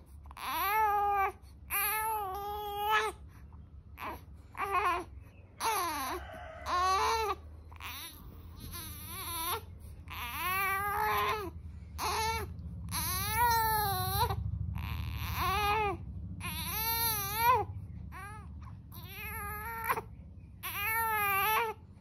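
Newborn baby fussing with a long series of short, wavering cries, one about every second or two.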